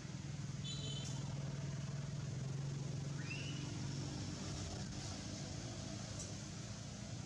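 A motor vehicle's engine humming steadily, fading about four seconds in, over outdoor background noise, with a few short high chirps.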